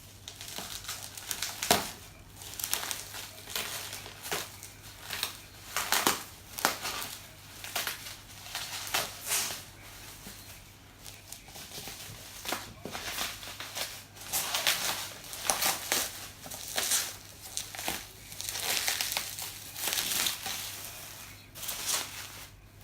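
Packaging being torn and crumpled open by hand: irregular crinkling and rustling with sharp snaps, coming in short flurries.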